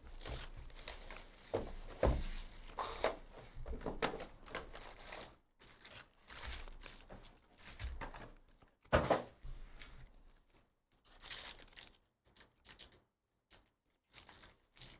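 Trading-card packaging being torn open and crinkled, with a few light knocks as it is handled; the rustling is busy at first and thins to scattered short crinkles in the second half.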